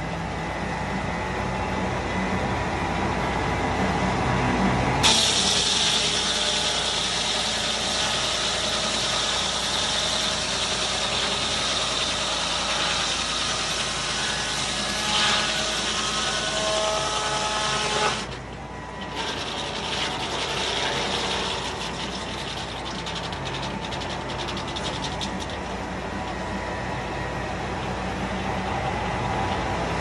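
Foley Belsaw circle sawmill cutting a poplar log. The mill runs at speed, then about five seconds in the blade enters the log with a loud, hissing, high-pitched cutting noise. The noise holds steady for about thirteen seconds and cuts off suddenly as the blade clears the log, after which the mill runs on with light clicking and rattling.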